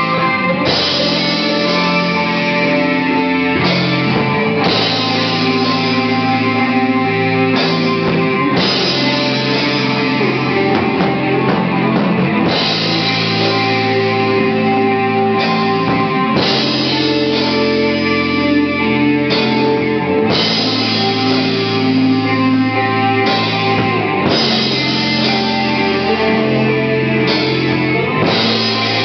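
Stoner rock band playing live and loud: heavy electric guitar over bass and drum kit, with cymbal-heavy passages that come and go every few seconds.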